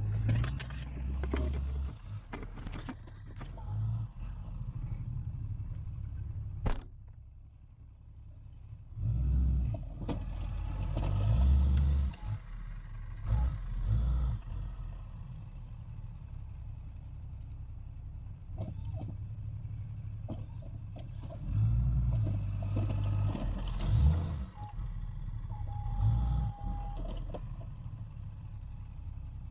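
Ram 2500 pickup truck's engine running while plowing snow, surging louder in several bursts as it pushes the drifts, with a few sharp knocks and a short steady tone late on.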